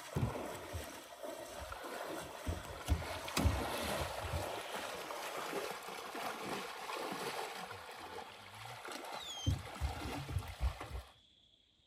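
Legs in chest waders wading through shallow water: sloshing and splashing with low, uneven thumps and a few sharp knocks. About a second before the end it cuts off suddenly to a faint, steady, high insect drone.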